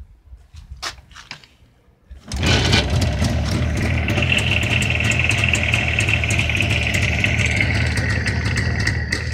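Warm Jawa 350 TS two-stroke twin, fitted with a Vape electronic ignition, being started: a few faint clicks, then about two seconds in the engine fires at once and settles into a steady idle.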